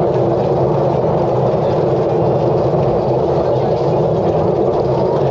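Tram running along its street track, a steady, unbroken running noise from the moving car.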